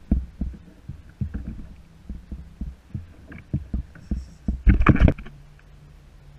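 Small waves slapping against a kayak hull close to the microphone, in irregular low thumps and knocks, with a louder burst of knocks about five seconds in; a faint steady low hum follows.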